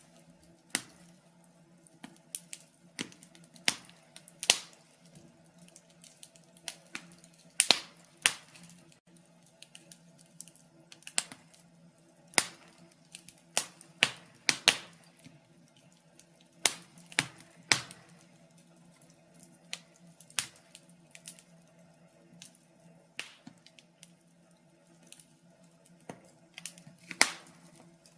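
Wood fire in a fireplace crackling: irregular sharp pops and snaps, one or two a second, some much louder than others, over a faint low steady hum.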